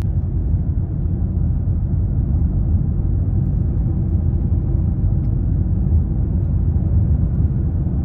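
Steady low rumble of road and engine noise heard inside the cabin of a moving car.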